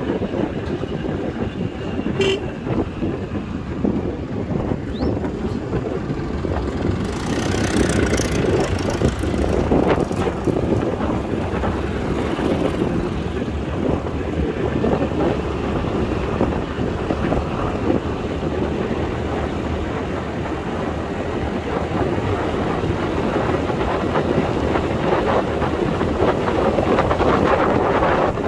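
Wind rushing over the microphone of a moving Honda Activa scooter, with the scooter's engine and tyre noise running steadily underneath while cruising along the road.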